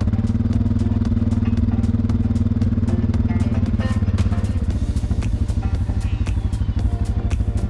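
ATV engine running steadily at low speed while driving, a continuous fast chug with frequent rattling clicks from the machine.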